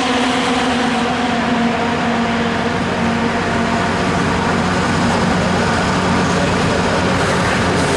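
IndyCar twin-turbo V6 engines running on the oval, a steady droning whine whose pitch sags slightly and rises again.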